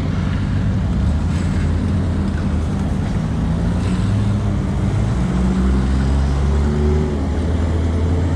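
A motor vehicle's engine running steadily with a low hum, its pitch shifting a little over the middle of the stretch.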